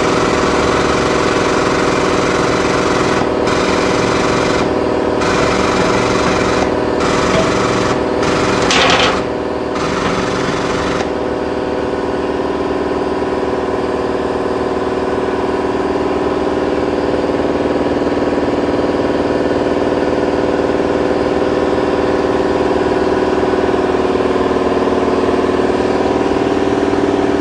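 A machine running steadily, with a fast pulsing low end under a hum of several steady tones. A hiss cuts in and out in abrupt chunks during the first ten seconds or so, then stops.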